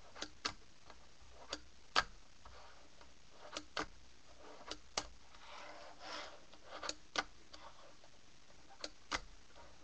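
A fingerboard clacking on a wooden tabletop during tricks: sharp taps of the tail popping and the board landing, about a dozen, several coming in quick pairs a quarter-second apart.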